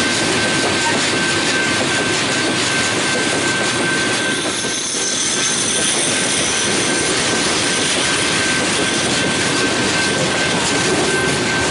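Loaded steel-coil cars of a freight train rolling past close by: a steady rumble and roar of wheels on rail, with a thin steady high tone running through it.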